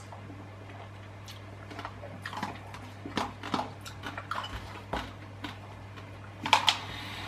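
A metal spoon clicks and scrapes against the inside of a plastic Pot Pasta pot as the pasta is scooped out, mixed with chewing. The sounds come as scattered light clicks, with the loudest clatter shortly before the end.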